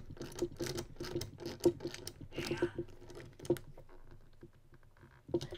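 A hand tool tightening a nylock propeller nut onto a drone motor's shaft: a quick run of small clicks and scrapes, thinning out about three and a half seconds in, with one last click near the end.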